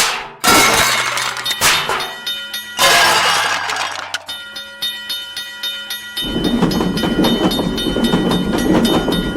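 Cartoon sound effects: several crashes and breaking sounds in the first few seconds, then a repeating ringing and a train rumbling past from about six seconds in.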